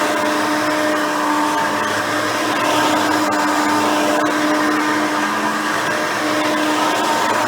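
Hoover Elite 350 upright vacuum, with a 5-amp motor and a seven-blade fan, running steadily while vacuuming, with a steady motor whine and a few faint ticks.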